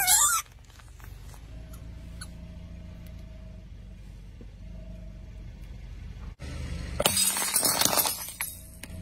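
A low steady hum, then about seven seconds in a loud crackling crunch lasting about a second and a half as a car tyre rolls over small plastic Peppa Pig toy figures and crushes them.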